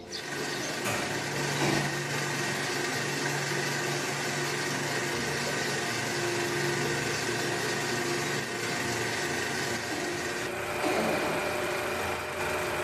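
Workshop lathes running: a steady mechanical hum with a few held tones, which shift slightly near the end.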